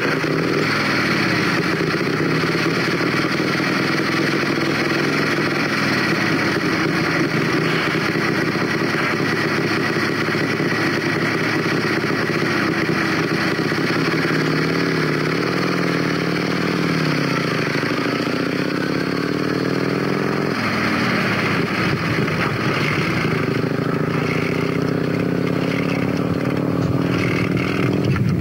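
Vintage motorcycle engine running and being revved, its pitch rising and falling several times, with an abrupt change in the sound about twenty seconds in.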